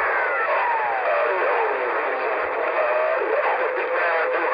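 Cobra 148 GTL CB radio hissing with band static through its speaker. A whistling tone glides steadily down in pitch over the first two seconds or so, and fainter whistles wander under the hiss after it.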